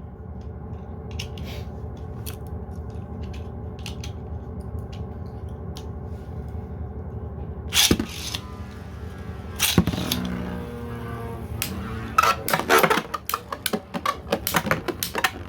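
Two 3D-printed beyblades spinning in a battle stadium with a steady whirr and light clicks as they touch. About eight seconds in, sharp clashes begin, and near the end they become a rapid run of hits.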